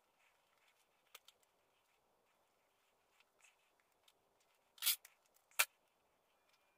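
Scissors cutting thick quilting thread: two sharp snips about two thirds of the way in, the first slightly longer, after faint rustling and small ticks of the thread being handled.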